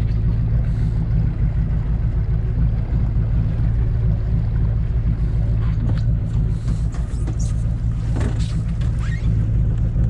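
Boat engine running steadily at trolling speed, a constant low rumble, with a few short knocks on the boat about six to nine seconds in.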